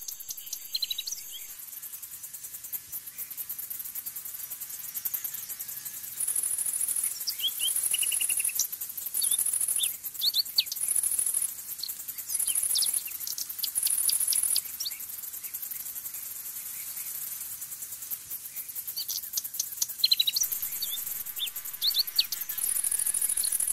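High-pitched insect buzzing that comes in repeated bursts of about a second each for several seconds, then runs steadily near the end. Short, high bird chirps are scattered throughout.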